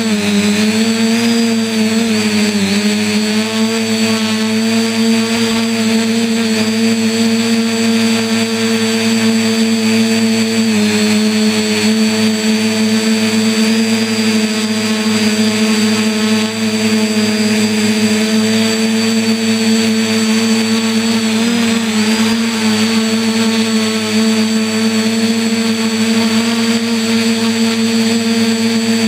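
RC quadcopter's motors and propellers buzzing steadily, heard up close from the camera mounted on the quad. The pitch dips briefly and recovers a few times as the throttle changes.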